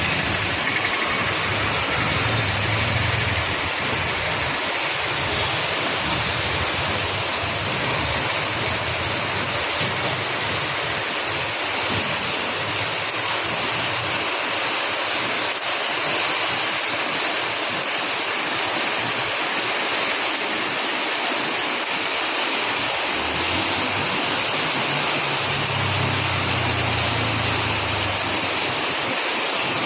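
Heavy rain pouring steadily, a dense continuous hiss of falling water. A low hum, like an engine, comes in briefly near the start and again for a few seconds near the end.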